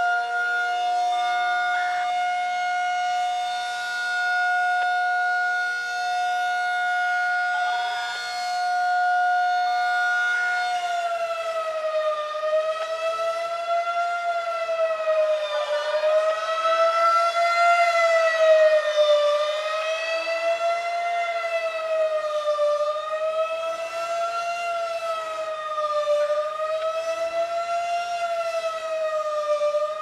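Federal Signal 2001-SRN rotating electromechanical tornado siren sounding a steady alert tone in a routine test. Its loudness swells and dips as the rotating horn sweeps past. About ten seconds in it switches to fast wail, the pitch rising and falling over and over.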